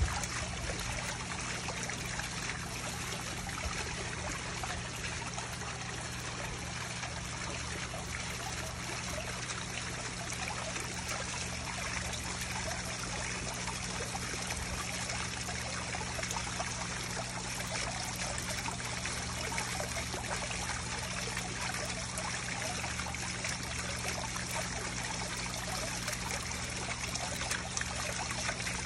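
Water trickling and splashing steadily into a koi pond, falling from an overhead spillway and a splashing fountain jet, with a low steady hum underneath.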